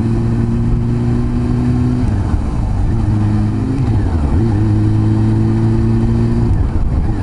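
Honda CB400 Super Four's inline-four engine running steadily under way; the note drops about two seconds in, then dips and climbs back about four seconds in.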